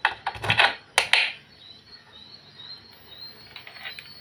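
Several sharp clicks and scrapes in the first second or so as multimeter test probes are handled against a circuit board and lifted off, followed by faint bird chirps in the background.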